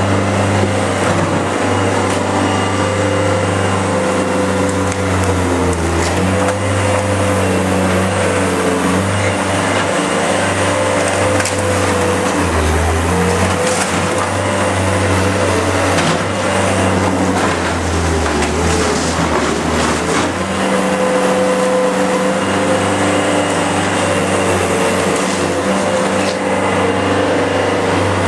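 Diesel engine of a demolition excavator running steadily and dropping in pitch under load twice, with crunching and splintering of wood and debris as the machine tears into the building's walls.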